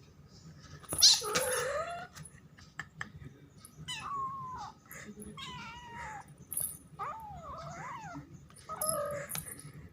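A frightened cat yowling in about five long, wavering calls, the first and loudest starting with a sudden harsh burst about a second in.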